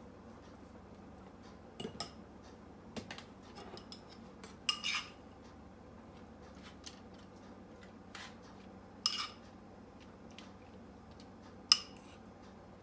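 Scattered sharp clinks and knocks of a utensil against a small ceramic bowl and a foil-lined baking tray while sauce is spooned onto fish fillets: about six clinks a few seconds apart, the sharpest near the end.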